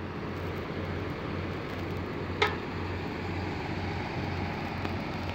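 Case CX220C excavator's diesel engine idling steadily, with one sharp click about two and a half seconds in.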